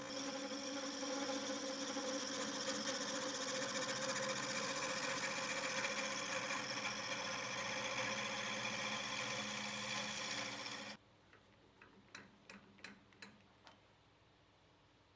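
Omega Stubby 750 wood lathe running while a turning tool cuts a spinning hardwood hammer-handle blank: a steady motor whine with a hiss of cutting. It cuts off suddenly about eleven seconds in, and a few faint clicks follow.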